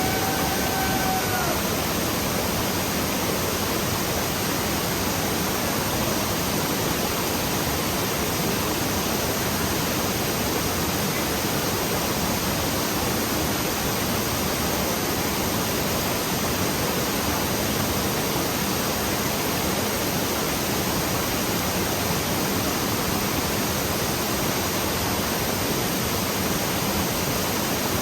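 Waterfall in full, heavy flow: a steady, unbroken rush of falling water.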